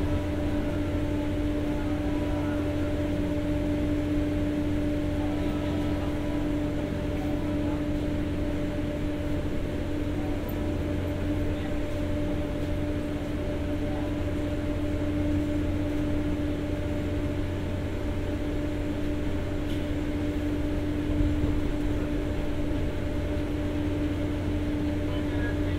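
On-board diesel generator of a former 203 series passenger car running with a steady hum over a low rumble, heard inside the car.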